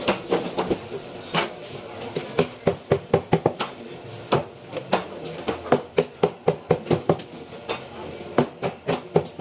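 Large kitchen knife cutting a red grouper fillet into slices on a cutting board: the blade knocks on the board at the end of each cut, giving a quick, irregular series of sharp knocks.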